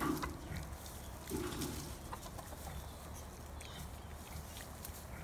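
Chickens clucking.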